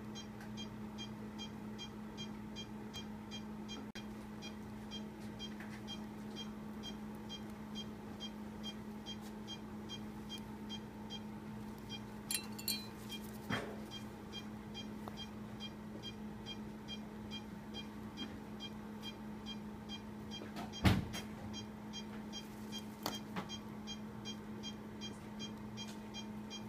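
An anesthesia patient monitor beeps faintly and rapidly, about three beeps a second, its pulse tone keeping time with the anesthetized dog's heartbeat. Under it runs a steady low hum. A few soft clicks are heard, with one sharper knock late on.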